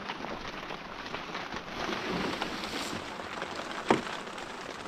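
Steady rain falling, a dense patter of drops, with a single sharp knock about four seconds in.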